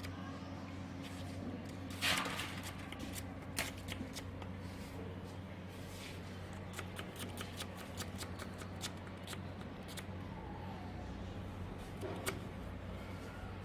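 Scattered light clicks and taps over a steady low hum, with a louder brief rustling scrape about two seconds in and another near the end.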